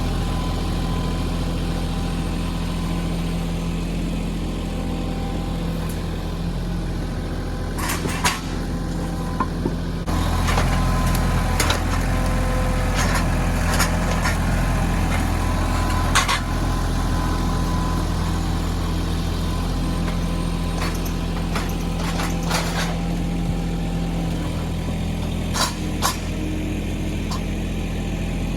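Mahindra 1626 compact tractor's diesel engine running steadily while the backhoe works, pulling a little harder about ten seconds in. Scattered sharp clanks and knocks are heard over it, several around the middle and a pair near the end.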